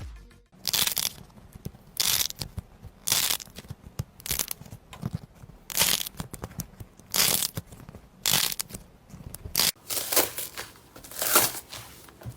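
Slime being squeezed and pressed by hand, squishing in repeated bursts about once a second.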